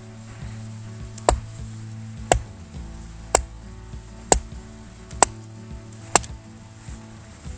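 Axe or hatchet chopping firewood, six sharp strikes about once a second, over background music.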